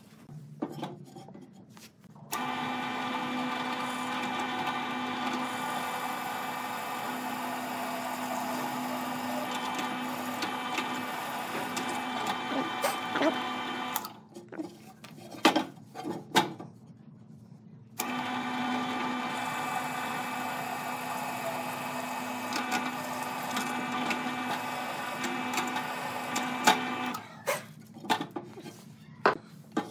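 Bench drill press motor running while a Forstner bit bores into a block of wood, starting about two seconds in and running steadily until about halfway. After a few seconds of knocks and clatter from the wood being handled, it runs again, stopping a few seconds before the end, followed by more knocks.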